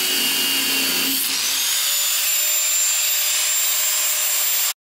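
Electric angle grinder with a 6-inch disc grinding steel, a loud steady hiss with a high whine that rises in pitch about a second in and then holds. It cuts off suddenly near the end.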